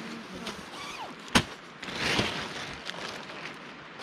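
Nylon tent fabric rustling as the tent is rolled up and packed into its carry bag, with one loud, sharp click about a third of the way in.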